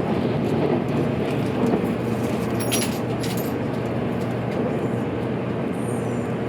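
JR Kyushu 783 series electric limited-express train running, heard from inside the car: a steady rumble of wheels on rail, with a few sharp ticks about three seconds in.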